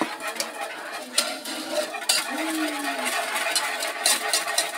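Wire whisk beating milk into a butter-and-flour roux in a metal saucepan: a quick, irregular run of light clicks and scrapes of the wires against the pan as the sauce thickens.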